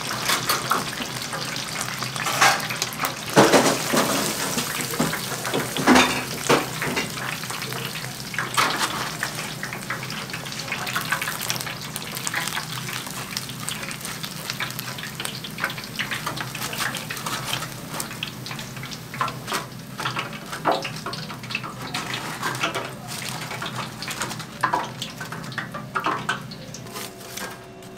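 Hot oil sizzling steadily in a deep fryer as battered tempura cooks, with scattered sharp clinks and knocks of a metal wire skimmer against the fryer and draining rack, most of them in the first few seconds.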